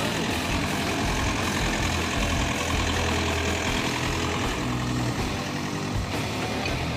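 Diesel engine of a Hyundai 555W wheeled excavator running steadily.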